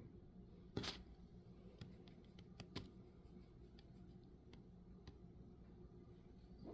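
Near silence broken by a few faint, short clicks and taps: the clearest is about a second in, with smaller ones near the middle.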